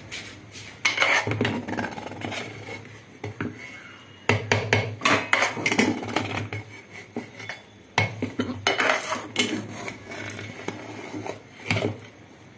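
Metal spoon scraping and clinking against the inside of a pressure cooker as cooked rice is stirred and turned over, in several bouts of quick knocks and scrapes.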